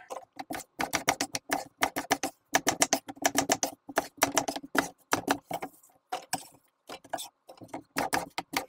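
Chef's knife chopping apples into wide dice on a wooden cutting board: quick runs of knife strikes on the board, several a second, with a couple of short pauses near the end.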